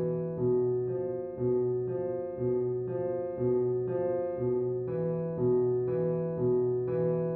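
Slow keyboard music with piano-like notes, a new note struck about twice a second in a repeating pattern.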